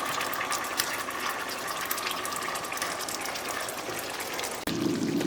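Hot pan of cooked meat sizzling, a steady hiss full of small crackles, while the meat is being transferred out. About four and a half seconds in, a lower, fuller rushing sound takes over.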